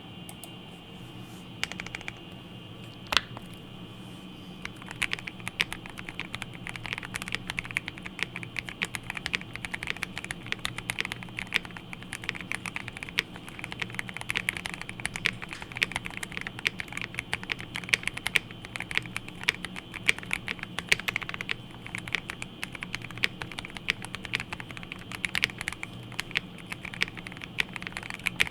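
Typing on a GMMK Pro mechanical keyboard with a POM plate, lubed Everglide Aqua King linear switches and GMK keycaps, PE-foam and tape modded for a deeper sound. A few single keystrokes come first, then steady fast typing from about five seconds in.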